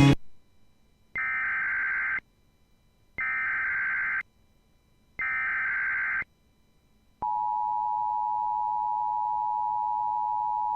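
Emergency Alert System broadcast tones: three bursts of SAME header data, each about a second long and two seconds apart, then the steady two-tone attention signal starting about seven seconds in. Together they mark the start of an alert, here a snow squall warning.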